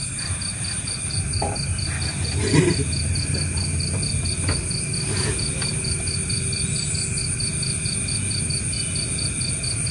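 Insects chirping in an even pulse of about five chirps a second, over a steady low rumble, with a brief knock about two and a half seconds in.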